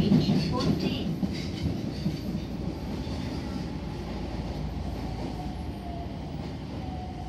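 Nagoya Higashiyama Line N1000-series subway train running, heard from on board: wheels clacking over the rails under a low rumble. The rumble drops off over the first few seconds, and a quieter steady running sound with a faint thin whine follows.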